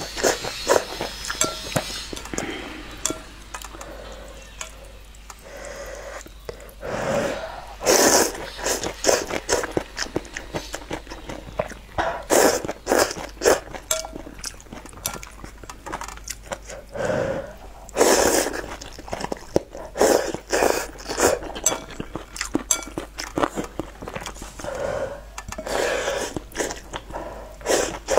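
Noodles being slurped from a bowl of soup and chewed, with a loud slurp every few seconds between many small wet mouth clicks.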